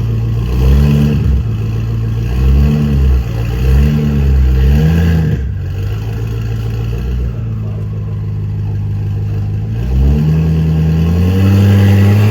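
BMW M5 Competition's twin-turbo V8 being blipped: four quick revs that rise and fall, a few seconds of steady idle, then one longer, higher rev near the end.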